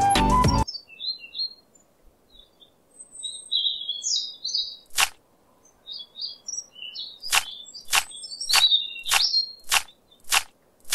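Small birds chirping in short, scattered calls. About halfway through comes a single sharp click, then a run of seven more at an even pace, a little over half a second apart.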